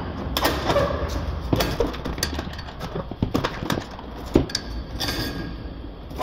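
Irregular metallic clinks, scrapes and knocks of hand work with a small tool at the car's exhaust pipe joint, with one sharper knock a little past halfway.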